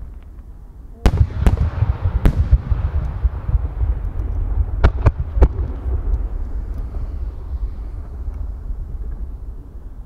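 Aerial firework shells bursting overhead. There are three sharp booms about a second in and three more about five seconds in, with a rolling low rumble and echo running on between them.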